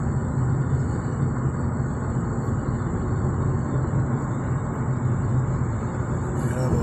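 Steady road noise inside a moving car's cabin: a low tyre and engine rumble.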